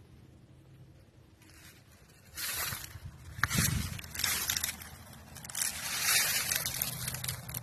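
Irregular rustling and crunching noise that starts about two and a half seconds in after a quiet start, with a low thump a little after three and a half seconds.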